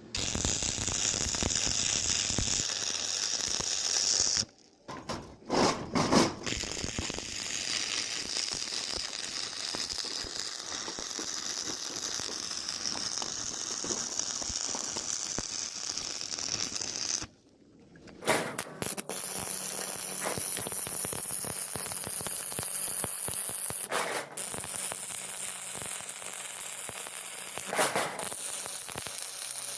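Metalworking noise: a steady crackling hiss with a few sharp metal knocks, broken twice by short gaps.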